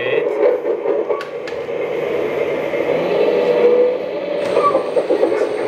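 Simulated diesel engine sound from the onboard sound system of a 1/14 Kabolite K970-100S hydraulic RC excavator, running steadily through the model's small speaker.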